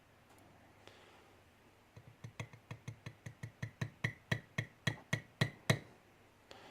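Quick run of small metallic taps on a lock's brass cylinder, about four a second for nearly four seconds, each with a short ring: working a stubborn spring out of a pin chamber.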